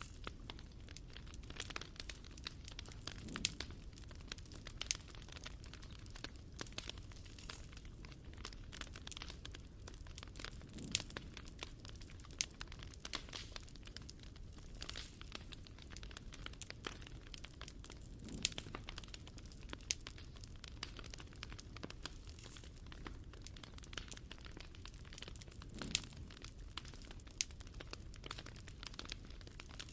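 Wood fire crackling: irregular sharp pops and snaps of burning wood over a low steady rumble, with a soft low swell about every seven or eight seconds.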